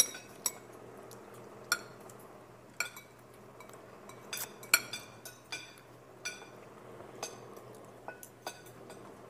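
Metal forks clinking against a cooking pot while people eat from it: irregular sharp clinks, about a dozen in all, the loudest just under five seconds in.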